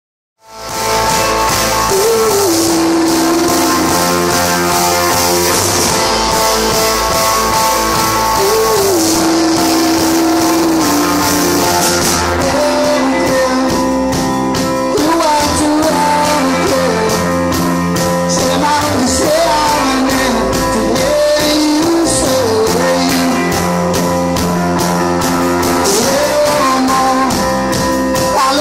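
A live rock band playing: a male lead singer over stage piano, bass guitar, electric guitar and drum kit, with the singing coming in about two seconds in. Recorded close up on a phone's microphone, so the sound is rough.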